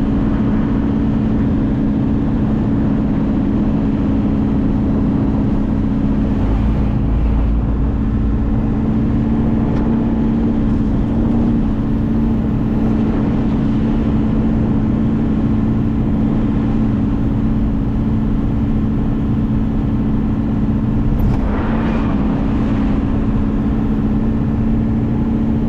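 1995 Ford F-350 dump truck's 7.3-litre V8 diesel engine running at a steady speed under way, heard from inside the cab as a constant drone over the rumble of the truck rolling along a dirt yard road.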